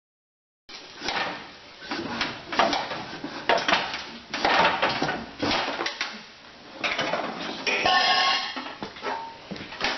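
Metal tools and parts clanking and clinking in an irregular run of knocks and scrapes during lawn tractor disassembly, starting abruptly about a second in.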